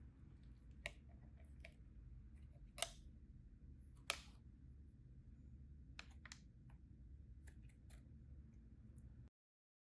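Scattered light clicks and taps of small keyboard parts being handled during assembly, two of them sharper about three and four seconds in, over a faint low room hum. The sound cuts off to dead silence near the end.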